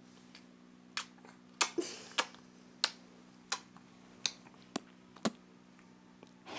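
A series of about eight sharp kiss-like mouth clicks or smacks, spaced roughly half a second to a second apart, over a steady low hum.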